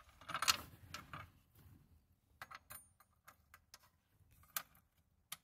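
A brief rustling clatter about half a second in, then scattered light clicks and knocks as an aftermarket B&M shifter lever is worked, catching on the plastic console surround where it pokes through.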